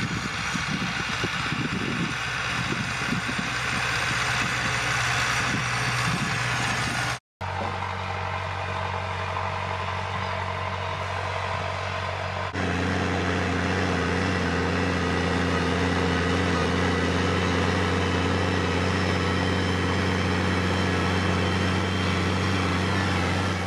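Farm tractor diesel engines running steadily under load in the field, in three separate shots. First an Ursus 912 pulls a seed drill, then a second tractor sows, and last a Case IH Maxxum pulls a cultivator. The sound cuts out briefly about seven seconds in and changes sharply at a second cut around halfway.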